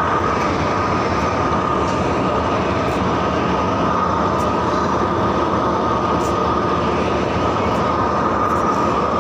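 Steady, loud train noise on a railway platform: a continuous rumbling hum with a steady high whine over it, unchanging throughout.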